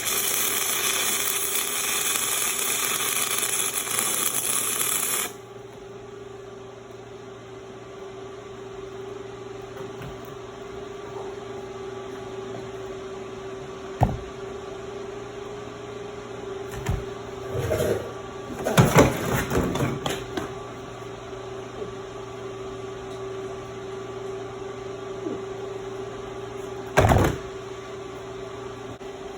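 Stick (arc) welding, loud and crackling, which cuts off abruptly about five seconds in. A steady low hum follows, with a few scattered knocks and clatters and a louder thud near the end.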